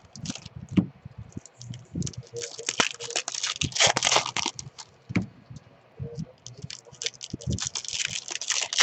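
Baseball card packs and packaging being handled: irregular crinkling and tearing of wrappers, with small clicks and knocks on the table.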